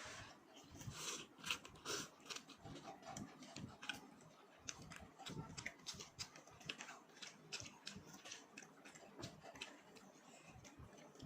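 Close-miked eating sounds: irregular chewing with short crisp clicks and mouth smacks.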